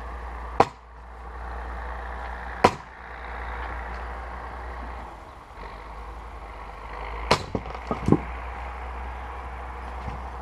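A 2.5 kg splitting maul struck into firewood rounds three times, each blow a single sharp crack of steel into wood. The third blow, about seven seconds in, is followed quickly by a run of lighter wooden knocks.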